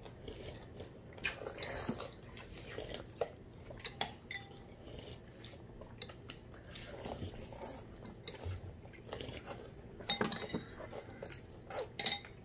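Metal spoons and a fork clinking and scraping against ceramic bowls and plates while udon is eaten. There are scattered sharp clinks, with a quick flurry about ten seconds in and another near the end.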